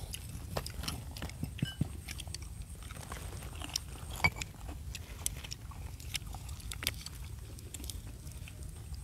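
People eating a meal of grilled fish, with scattered small clicks and clinks of chewing and handling food throughout, over a low steady rumble.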